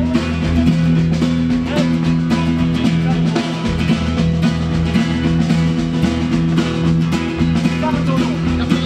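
A live band playing an instrumental passage: strummed acoustic guitar, upright double bass and drum kit in a steady, driving rhythm, with no singing.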